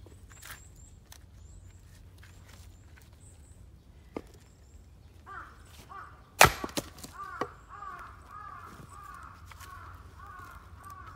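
A single sharp crack of an axe striking a black locust firewood piece on the chopping block, about six seconds in, with lighter knocks of wood shortly before and after. From about five seconds on, a bird calls over and over in quick, arched notes, and faint high chirps of a small bird are heard in the first few seconds.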